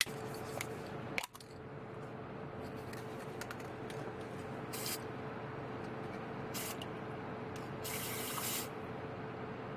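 Krylon chrome metallic aerosol spray paint can spraying onto water in short hisses: three bursts, about five, six and a half and eight seconds in, the last the longest. A box fan hums steadily underneath.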